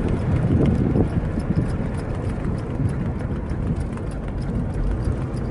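Rush of wind and road noise from a moving car: a steady, heavy low rumble.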